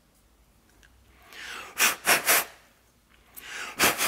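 A person drawing a quick breath and then blowing three short, sharp puffs of air, done twice, to blow the tracks of a linear-bearing carriage part dry and clear out leftover gunk.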